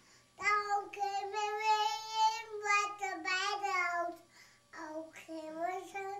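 A young child's high voice singing long, wavering held notes without clear words, in two phrases with a short break a little past the middle.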